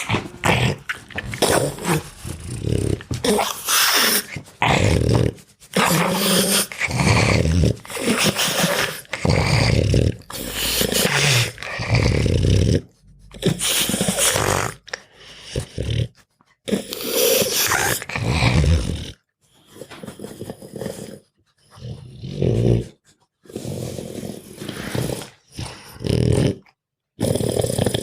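Dogs growling in a run of short bursts that start and stop abruptly, with brief gaps between them.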